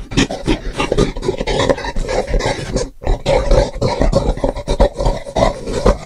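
Creature sound effects: a rapid, choppy run of growls and grunts, with a brief break about three seconds in.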